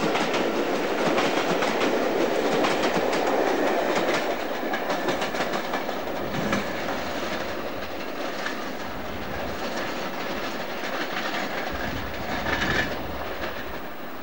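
Coaches of a steam-hauled passenger train rolling past close beneath, wheels clicking over the rail joints, the sound fading as the train draws away around the curve.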